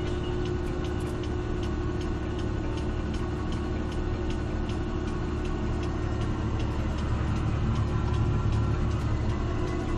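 CLAAS Axion 850 tractor's six-cylinder diesel engine running steadily at road speed, heard from inside the cab as a low drone. It swells briefly near the end as an oncoming tractor with a trailer passes close alongside.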